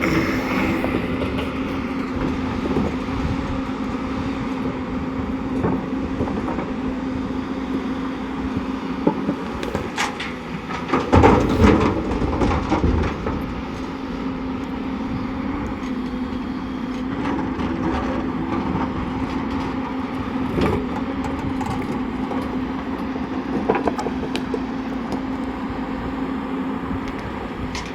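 Heavy diesel earthmoving machinery running with a steady drone, with scattered metallic clanks. A loud clatter of knocks and impacts comes about eleven seconds in and lasts a couple of seconds.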